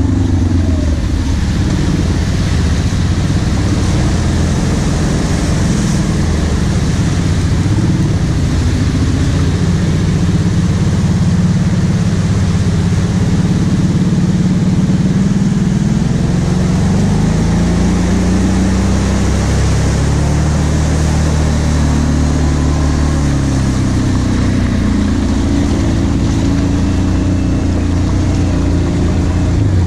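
Kawasaki Brute Force 750 ATV's V-twin engine running under way on a muddy track, its revs rising and falling as it is throttled.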